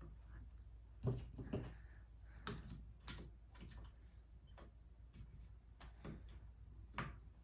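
Faint, irregular clicks and taps of RAM modules being handled and pressed into the motherboard's memory slots, with the slot retention clips snapping shut.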